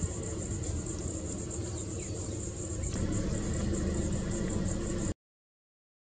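Steady high-pitched insect buzz over a low steady hum, both cutting off suddenly about five seconds in.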